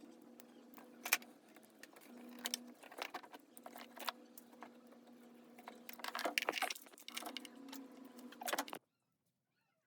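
Automotive wiring loom and its plastic connectors being handled: irregular clicks, taps and rattles of wires and pins, over a steady low hum. The sound cuts off abruptly a little before the end.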